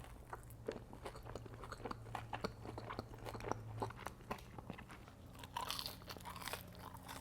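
Close-up eating sounds from chicken wings: crunchy bites and wet chewing, with many short crackling clicks.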